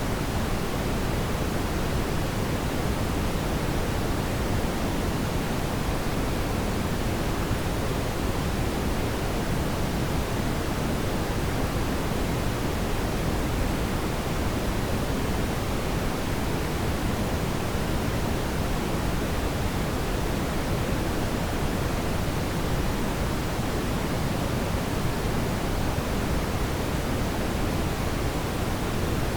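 Steady synthetic brown noise: a deep, even hiss weighted toward the low end, unchanging throughout.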